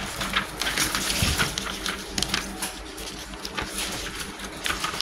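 Sheets of paper rustling and crackling as they are handled and turned on a desk, with a ballpoint pen writing, over a steady low hum.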